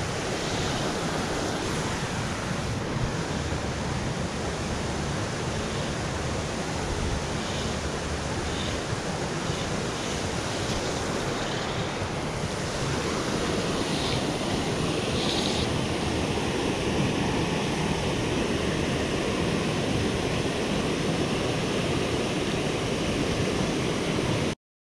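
Steady rushing noise of water pouring over a low rock cascade, mixed with wind on the microphone, growing a little louder about halfway through and cutting off suddenly near the end.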